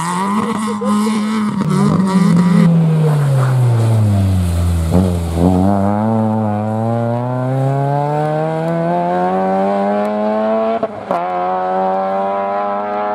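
Rally car engines on a stage. An engine holds a steady note, then drops in pitch as the car slows. A Volkswagen Golf rally car then accelerates with a long, slowly rising engine pitch, has a brief break about 11 seconds in as it changes gear, and pulls on steadily.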